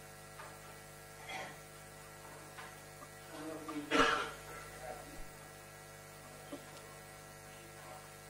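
Steady electrical mains hum in the room's microphone system, with faint, unintelligible speech from a man talking away from the microphone, loudest about four seconds in.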